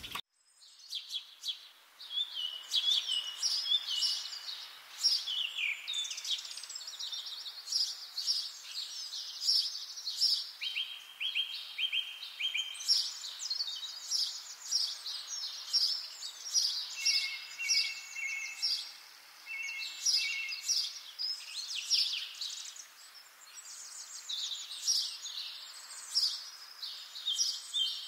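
Several songbirds singing at once, a dense chorus of quick trills and chirps with a few longer even notes, starting about two seconds in.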